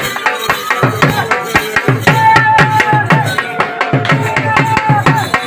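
Pashto attan dance music: fast, dense drumming, with a held, wavering melody line joining about two seconds in.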